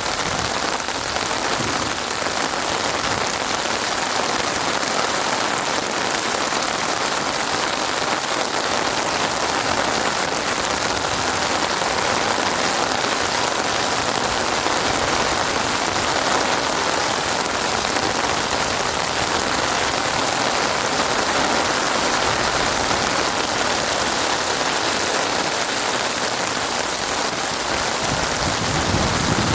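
Steady rain falling on a surface, an even hiss of many drops.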